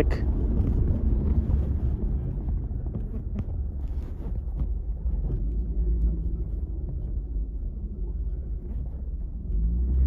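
Road noise inside a moving car's cabin: a steady low rumble of tyres and engine, swelling a little near the end.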